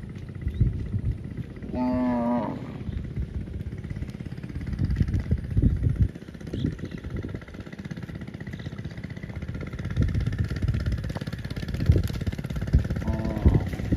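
Low wind rumble buffeting the microphone, with two short cow moos, one about two seconds in and another near the end.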